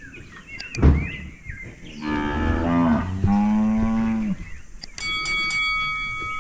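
A cow moos once, a long call of about two seconds that slides down and settles on a lower, steady note. A short, loud thump comes about a second in, and near the end a bell-like ringing tone begins.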